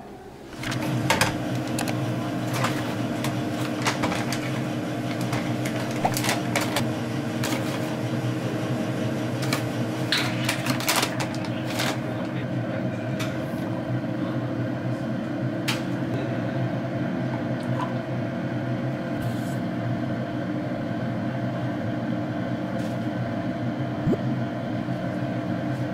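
A steady electric appliance hum, as from a cafe machine's motor or compressor, with scattered clinks and clicks of cups and utensils being handled.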